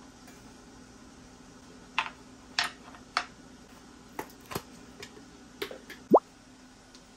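Plastic snap-on lid of a spread tub being gripped and prised off: a run of sharp plastic clicks and snaps, then a short squeak rising quickly in pitch near the end, the loudest sound.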